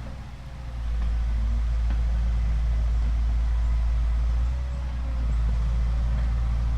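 Excavator engine running, a deep steady rumble that grows louder about a second in.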